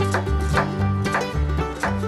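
Background music: quick plucked-string notes over a bass line that steps up and down in a steady, bouncy rhythm.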